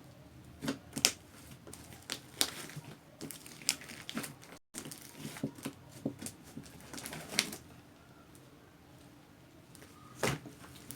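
Hands kneading and pulling a large batch of fluffy slime mixed with shaving cream, making irregular sticky clicks, crackles and squelches as it folds and pulls apart. The sound drops out for a moment about halfway and is quieter for a while near the end.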